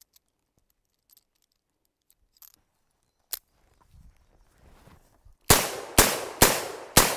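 Four rapid gunshots about half a second apart, starting a little over five seconds in, each followed by a long echoing decay. Before them there are only a few faint clicks.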